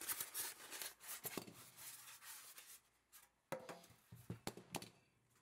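Handling noise from a steel 1911 pistol being set down and shifted on a work mat. First comes a run of rubbing and scraping with small clicks, then several sharp clicks and light knocks in the second half.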